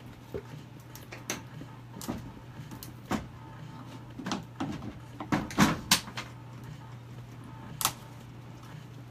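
Pry bar working the seam between the two halves of a fiberglass case mold: a series of irregular knocks, clicks and scrapes as the halves are levered apart, thickest about five to six seconds in, with one sharp knock near the eighth second. A steady low hum runs underneath.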